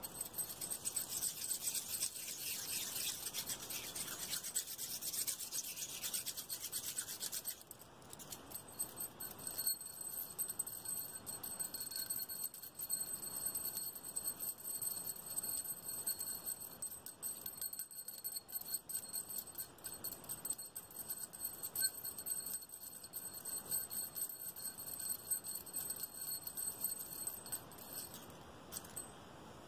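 Close-up ASMR hand sounds: hands and fingers rubbing and scratching, with quick taps on a small clear container. A brighter hissing rub lasts about the first seven seconds, then gives way to dense light scratches and taps.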